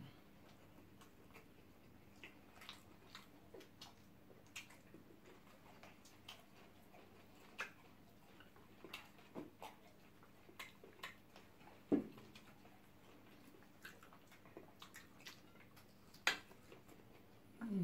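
Eating sounds close to the microphone: scattered soft clicks and smacks of chewing, and a metal spoon against a plate, with a sharper click about twelve seconds in.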